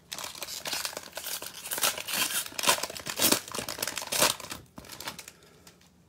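Clear cellophane wrapper of a trading-card cello pack being torn open and crinkled by hand: dense crackling and tearing for about four and a half seconds, then a short lull and a little softer rustling.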